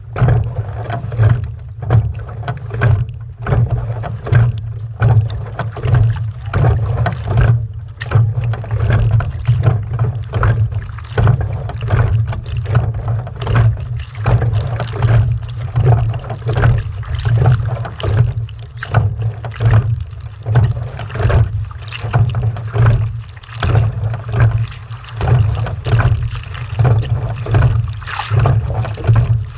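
Regular strokes, about one a second, over a steady low rumble.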